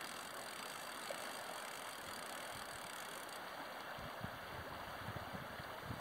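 Steady rush of river water, with a few low wind thumps on the microphone in the last two seconds.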